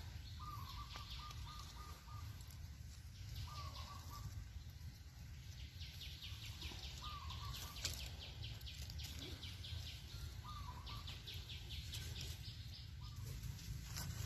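Forest ambience: a bird repeating a short call roughly every three seconds, starting with a run of several quick notes. A fast, high, pulsing trill comes and goes behind it over a steady low rumble.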